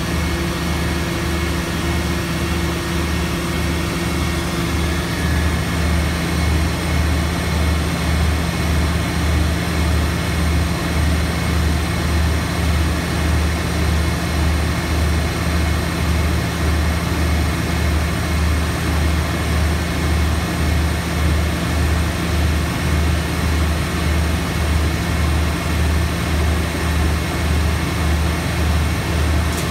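A heavy engine running steadily at constant speed with a deep hum that pulses about twice a second, over an even rushing noise. A fainter higher hum stops about five seconds in.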